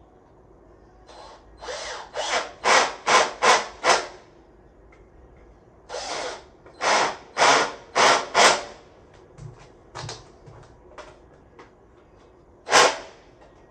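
Screws being driven through the bike wall bracket into the wall, heard as short rasping bursts: a run of about six, then about four more after a pause, a few light clicks, and one more burst near the end.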